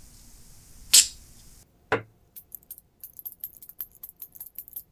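A short squirt of aerosol penetrating lube about a second in. After a knock, there is rapid, high-pitched metallic clicking from the 30-tooth Snap-on F-71-D ratchet mechanism as it is worked back and forth to draw the lube in.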